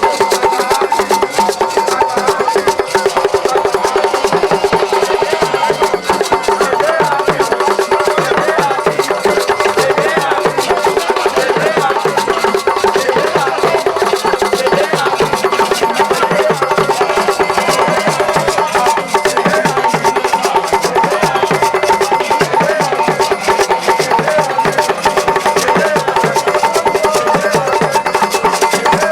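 Music with fast, busy percussion: rapid even clicks over a steady held note and a busy melody.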